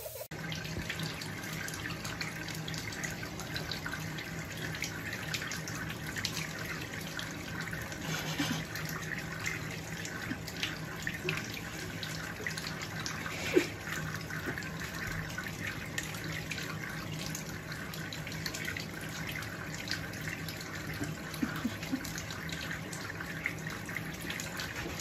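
Tap water running steadily into a bathtub, with small splashes and drips. There is one sharp click about halfway through.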